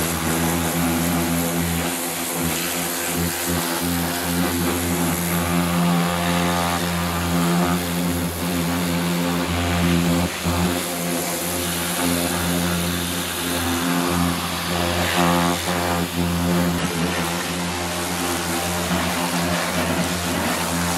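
Pressure washer running steadily: its pump motor hums under the hiss of the high-pressure water jet spraying a car's alloy wheel and tyre.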